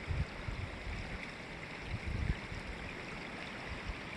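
Creek water running, a steady rushing hiss, with a few low thumps near the start and about two seconds in.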